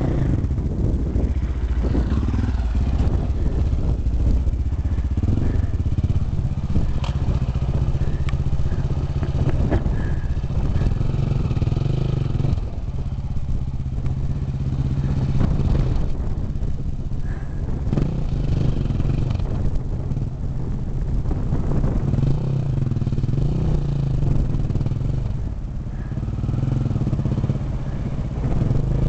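Off-road dirt bike engine running at low revs over rough rocky ground, its pitch rising and falling as the throttle is worked.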